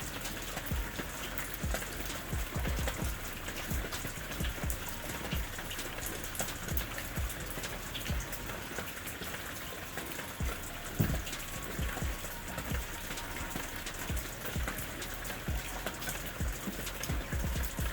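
Steady rain falling, with many scattered drops pattering and tapping on a surface, and one louder knock about 11 seconds in.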